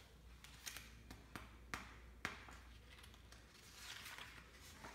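Faint handling of a hardback picture book: a few light taps, then a soft paper rustle about four seconds in as a page is turned.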